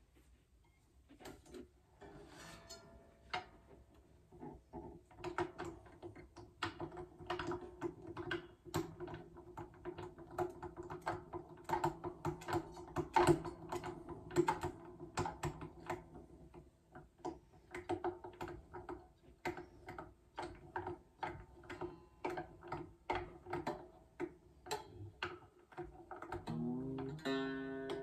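Epiphone Casino hollow-body guitar being restrung: a fast run of clicks as a tuner is wound, with the strings ringing faintly. Near the end a string sounds and rises in pitch as it is tightened, then rings on.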